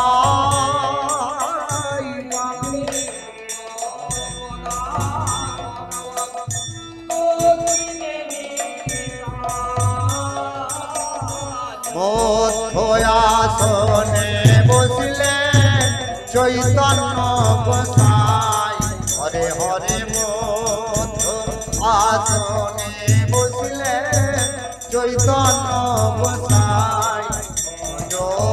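Devotional kirtan singing with a wavering melodic voice over steady metallic percussion. A low drum beat comes in strongly about halfway through.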